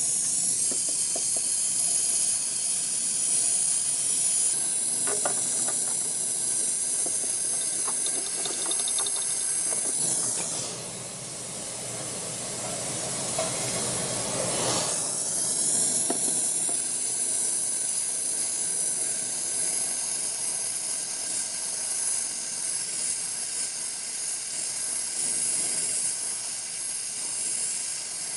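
Brazing torch flame hissing steadily while a copper refrigerant line is brazed onto a compressor with 45% silver rod. A little before the middle the high hiss drops away for a few seconds under a lower rushing sound, then comes back steady.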